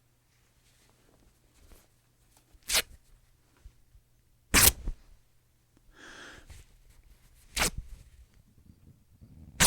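Cotton fabric being ripped in short, sharp tears, four in all, spaced two to three seconds apart, with the last one at the very end. A softer, longer rustle comes about six seconds in.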